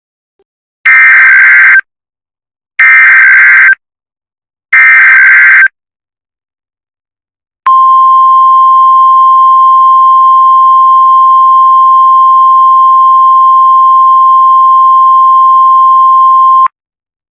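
Emergency Alert System signal: three short SAME digital header bursts, each about a second long with brief gaps, then a single very loud steady alarm tone of about 1050 Hz held for about nine seconds. This is the NOAA Weather Radio warning alarm that signals an incoming severe weather alert.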